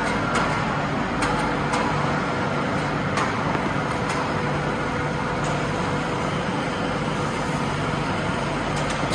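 Steady machinery noise with a low hum, and a few sharp clicks in the first few seconds.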